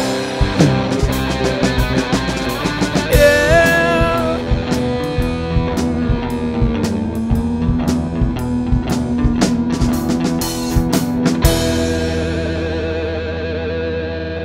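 Rock music with electric guitar and a drum kit. About eleven seconds in the drums stop, leaving a held guitar chord that wavers and slowly fades.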